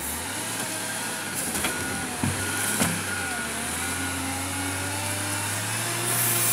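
Diesel engine of a Volvo wheel loader running, with a few sharp metal knocks from the log grapple working the logs between about one and a half and three seconds in. The engine gets louder near the end as it takes the weight of a heavy log.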